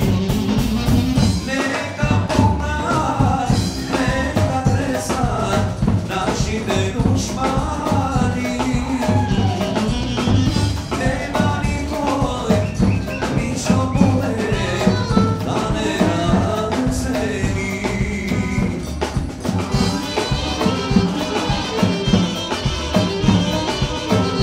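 Live Balkan folk dance music played on tapan (large double-headed bass drums) and a saxophone: a busy, driving drum beat under a wavering, ornamented melody.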